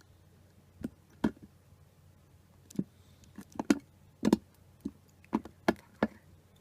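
About a dozen sharp, irregular knocks and clicks of a thin plastic tub being handled and pressed while a soldering iron melts a hole through it.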